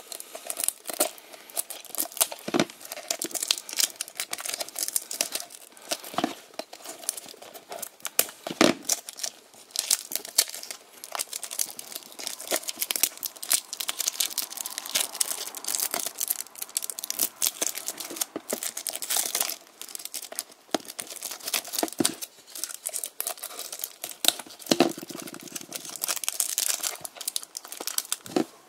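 A small cardboard toy-car box being opened by hand: a metal blade slits the seal, the card is worked open, and the clear plastic bag around the die-cast car crinkles and rustles in a run of irregular crackles. A short rapid rasp comes about three-quarters of the way through.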